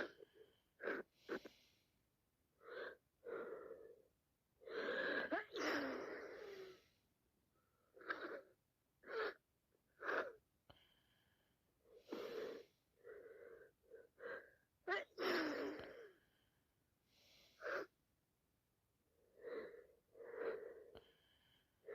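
A woman with sinusitis sneezing and sniffing through a congested nose: a run of short sniffs and catches of breath between moments of quiet, with two longer bursts about five and fifteen seconds in.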